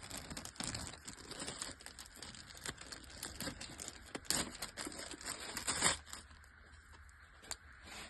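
Plastic packaging crinkling and tearing as a cable is unwrapped: a busy run of rustles and crackles for about six seconds, then it goes faint, with one last click near the end.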